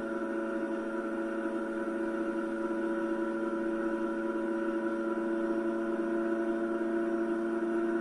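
Simulated car engine sound from the Electude training simulator, running steadily as an even drone, heard through a TV speaker.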